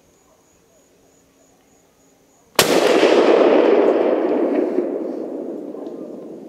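A single shot from a Savage .270 Winchester hunting rifle about two and a half seconds in, its report rolling away in a long echo that fades over several seconds. It is the shot that drops a doe.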